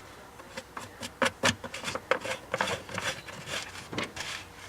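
A cover being fitted back on over a Dodge Dakota's distributor cap in the engine bay: a run of irregular light clicks, taps and rubbing of parts against each other.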